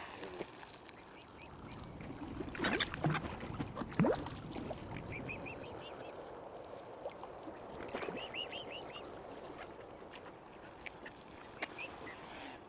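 Waterfowl calling on open water, with two runs of short, quick calls about five and eight seconds in. Louder rough noises come about three to four seconds in.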